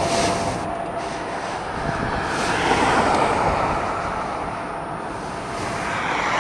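Motorcycle riding at speed: wind rushing over the microphone with the engine running underneath, swelling and easing a couple of times.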